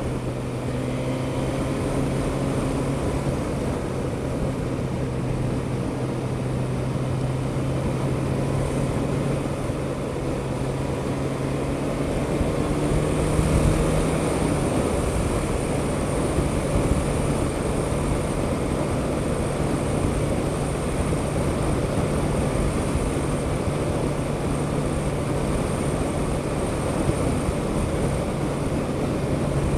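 Suzuki GSX-S1000GT's inline-four engine running at a steady cruise, heard from onboard the moving motorcycle over wind and road noise. The engine note shifts briefly about halfway through.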